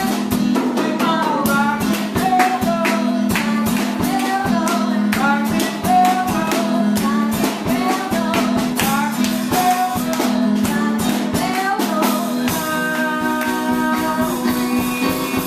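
Live band music: strummed acoustic guitar with a drum kit keeping a steady beat and voices singing. Near the end the singing gives way to long held notes.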